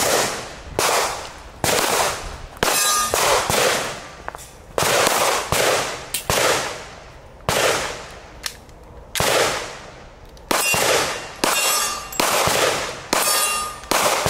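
Pistol shots in a long string, roughly one every half second to a second, each sharp crack fading off. A few are followed by the ringing clang of a steel target being hit.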